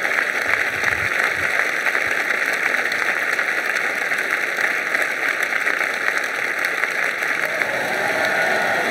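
Large crowd of thousands applauding, a dense, steady wash of clapping.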